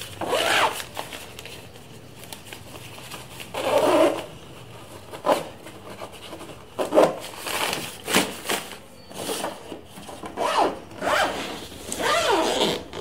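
Zipper in a suitcase's fabric lining being drawn open and shut in several short strokes, with the lining fabric rustling between them.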